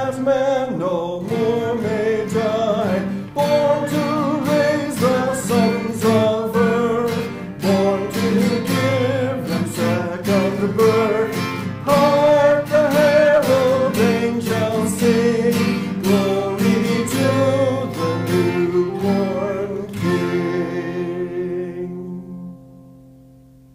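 Acoustic guitar music with a melody line over strummed chords, ending about twenty seconds in on a final chord that rings out and fades away.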